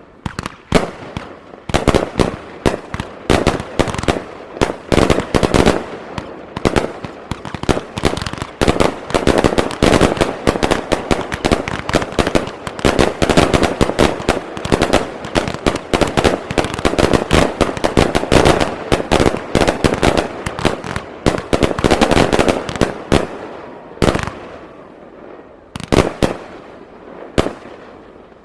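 Professional aerial fireworks display: a dense, rapid barrage of shell bursts and crackling, with bangs coming many times a second, thinning to a few single booms in the last few seconds.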